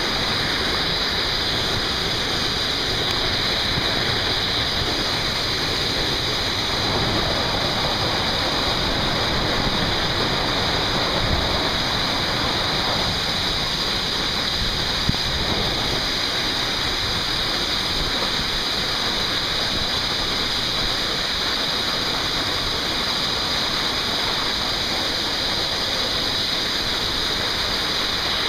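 Steady roar of the Oules de Freissinières geyser waterfall pouring down the canyon rock, heard from right inside its spray.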